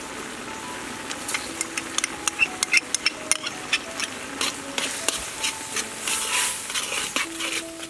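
A spoon clinking and scraping against a wok while stirring squid in simmering broth: a run of sharp clicks from a second or so in, over a steady hiss of bubbling.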